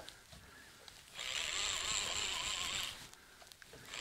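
Surfcasting reel being wound in, a whirring that comes in spells of under two seconds: one starting about a second in, another right at the end. It is a small fish being retrieved.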